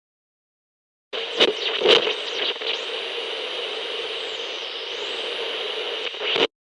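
Radio tuning sound effect: static hiss with whistling tones sweeping up and down as the dial is turned. It starts about a second in with a couple of quick sharp sweeps, then runs on as steady hiss and cuts off suddenly near the end.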